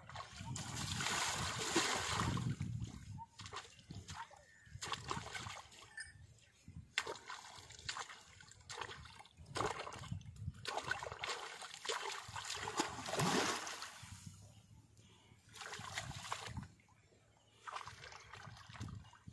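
Pond water splashing and sloshing as a bullock is washed by hand in the water, in uneven bursts, loudest about a second in and again around thirteen seconds.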